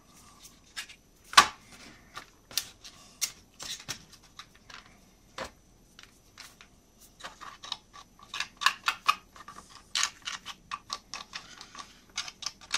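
Light clicks and taps of thin laser-cut wooden kit parts and a hobby knife on a workbench, with one sharper knock about a second and a half in. A quick run of small scraping clicks follows in the second half as the blade picks squeezed-out glue from the joints.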